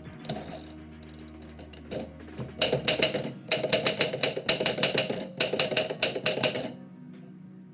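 Typewriter keys striking in quick runs of typing, starting a few seconds in, broken by two short pauses, and stopping near the end.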